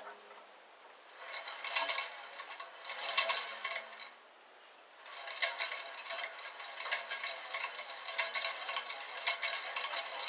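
Upper wheel of a 9-inch Mastercraft bandsaw spun by hand, the blade running round the wheels with a light metallic rattle and ticking. The spin comes in two goes, one starting about a second in and a longer one from about five seconds in, as the blade's tracking on the wheel is checked.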